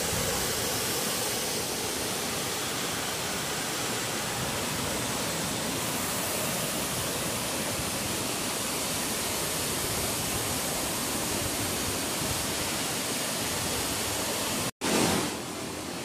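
Steady rush of a waterfall pouring over rock into a pool. The sound cuts out for an instant near the end, comes back briefly louder, then runs on a little quieter.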